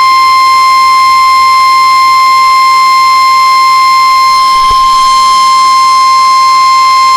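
NOAA Weather Radio 1050 Hz warning alert tone: a single loud, steady tone held without a break, signalling that a warning message is about to be broadcast.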